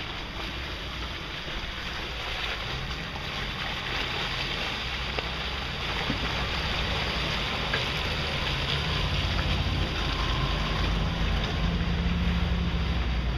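Off-road trucks' engines as a Land Rover Discovery and a Chevrolet pickup crawl through a muddy trail. The engine sound grows steadily louder as the pickup approaches, over a constant hiss of wind and tyres.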